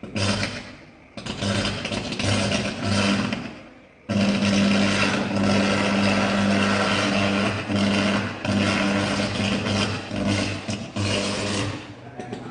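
Electrical arcing inside an electricity meter box: a harsh crackle with a mains buzz, coming in short spells at first, then running almost unbroken from about four seconds in.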